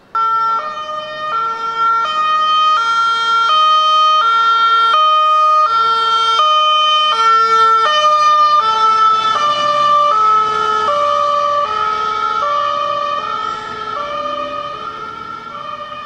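German fire brigade two-tone siren (Martinshorn) on a crew transport van, alternating evenly between a high and a low tone about every 0.7 s. Its pitch dips slightly about nine seconds in, and it grows somewhat fainter toward the end.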